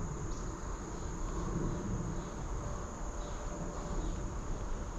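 Insects singing in a continuous chorus: a steady, high-pitched drone, with a low rumble underneath.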